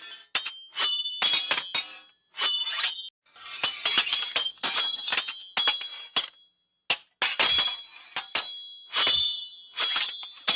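Sword sound effects: a rapid series of metal blade clashes, each ringing briefly in high tones, with a longer scraping stretch of blade on blade about a third of the way in.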